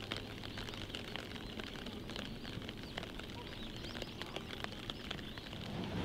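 Quiet outdoor field ambience: scattered light ticks of falling drops, with faint bird chirps.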